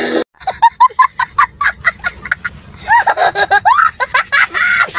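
A young boy laughing hard: a rapid string of short, high-pitched laughs whose pitch rises and falls, starting just after a brief drop-out in the sound.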